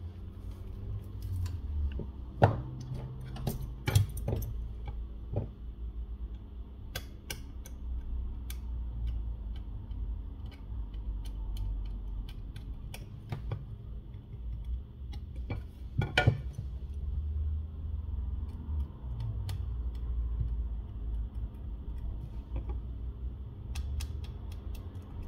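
Scattered small clicks and taps of steel tweezers against a phone's glass back cover and its adhesive tape, with a few louder clicks, over low handling rumble and a faint steady hum.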